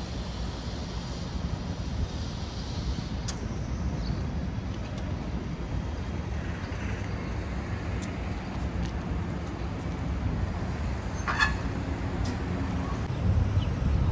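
City street ambience: a steady low rumble of road traffic, with a few faint clicks and a brief high squeak about eleven seconds in.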